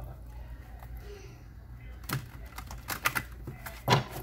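A deck of tarot cards being shuffled and squared on a wooden table: a few sharp card clicks and taps, starting about two seconds in, with the loudest tap near the end.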